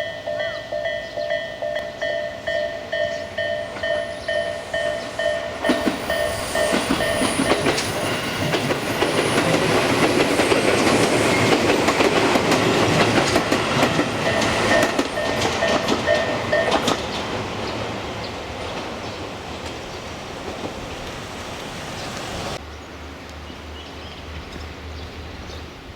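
Japanese level crossing alarm ringing in a steady pulse, about two rings a second, while a Tobu Tojo Line electric train passes over the crossing from about six seconds in, loudest midway. The alarm stops at about seventeen seconds as the train noise fades away.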